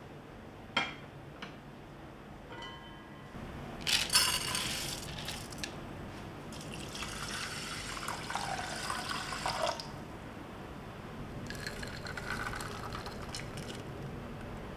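Water poured from a glass measuring cup onto rice in a ceramic pot, a filling pour whose pitch rises as the pot fills. A sharp clink about a second in, and shorter pouring sounds before and after the main pour.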